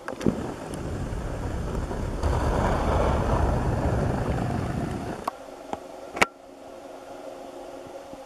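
Low rumbling noise on the camera's microphone for about five seconds, then a few sharp clicks, the loudest about six seconds in, followed by a faint steady hum.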